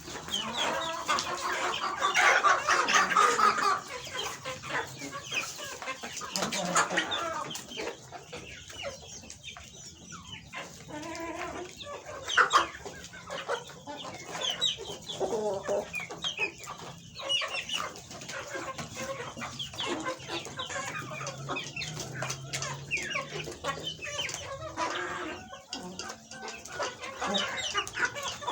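A flock of chickens clucking and calling continuously, with a louder burst of calls about two to four seconds in.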